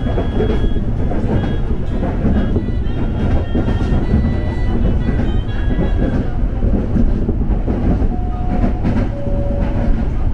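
KRL Commuter Line electric commuter train running, a steady low rumble. Two brief steady tones sound one after the other near the end.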